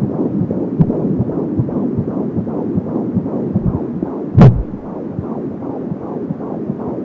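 Fetal heartbeat at 15 weeks heard through an Angel Sounds handheld fetal Doppler: a fast, even whooshing pulse, about three beats a second (170 a minute). A brief loud knock cuts in about four and a half seconds in.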